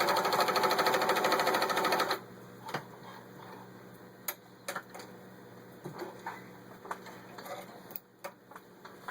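Pfaff 297-1 sewing machine running at speed, sewing a zigzag stitch through layers of thin denim with a rapid, even stitching rhythm that stops about two seconds in. After that come scattered light clicks and knocks.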